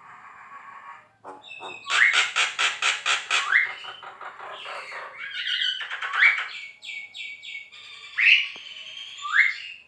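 Javan myna singing loudly and at length: a varied song of harsh chatter and a fast run of repeated notes, with several sharp rising whistles.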